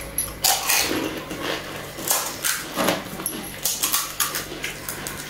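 Crisp, hollow pani puri shells being cracked open with fingers: a run of irregular sharp crackles, some single and some in quick clusters.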